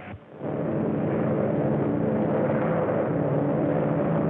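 Propeller airplane engine droning steadily, starting about half a second in.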